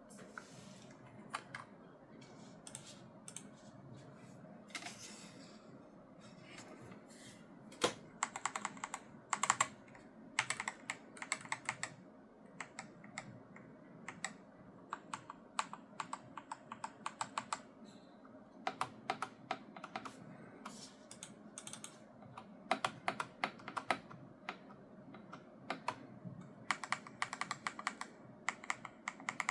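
Logitech G Pro X TKL Rapid keyboard with Hall-effect magnetic linear switches being typed on: sparse keystrokes at first, then fast runs of clacks with short pauses between them.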